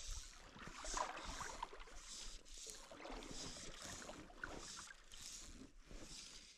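Faint, repeated soft swishes of fly line moving through the air and rod guides during false casting, coming about twice a second.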